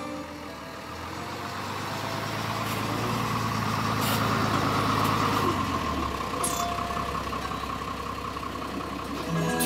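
An old school bus's engine grows louder as the bus approaches and pulls up, then settles to a lower idle from about six seconds in.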